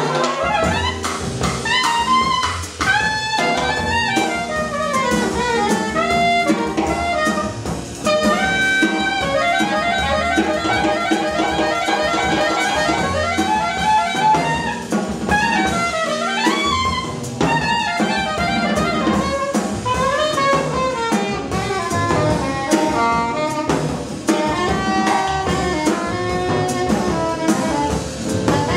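Live small-group jazz: a soprano saxophone plays a melodic line over upright bass and drum kit, with a stretch of fast, evenly repeated notes partway through.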